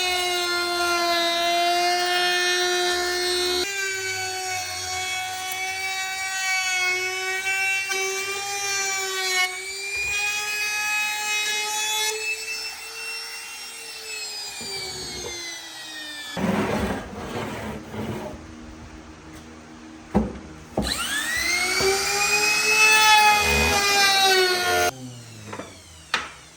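Electric power tool's motor whining at high speed on wood, its pitch sagging and recovering as it works. It breaks off into rougher noise with a few knocks, then spins up again and cuts off shortly before the end.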